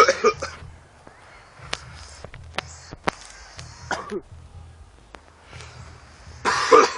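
A man coughing and clearing his throat, hacking up phlegm after inhaling spice smoke. There are loud bursts at the start and near the end, and a shorter one about four seconds in, with a few faint clicks between.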